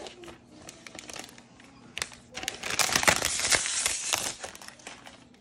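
Clear plastic wrap crinkling as a new iPad is slid out of it, loudest in a stretch just past halfway. Before that there are light taps and rustles of handling, and a sharp click about two seconds in.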